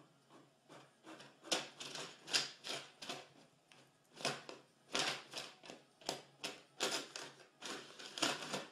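A cat pawing and scratching at a printer and its paper: an irregular string of sharp taps and clicks, starting about a second and a half in.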